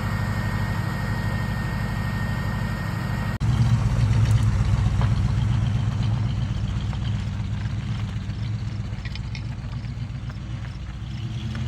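A car engine running steadily, with an abrupt cut about three and a half seconds in to a louder stretch of the same kind of engine sound. Before the cut a faint steady high tone runs over the engine.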